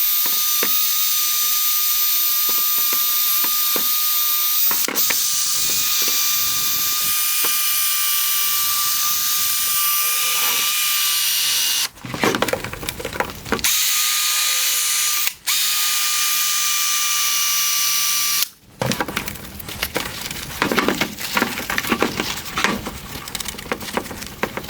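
Electric drill spinning a 3M P800 sanding disc against a plastic headlight lens: a steady high motor whine with sanding hiss. It pauses briefly about halfway through, then stops for good near the end, and scratchy handling and rubbing noises follow.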